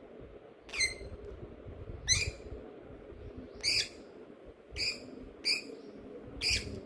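A bird calling repeatedly: six short, high calls spaced roughly a second apart, over a low background rumble.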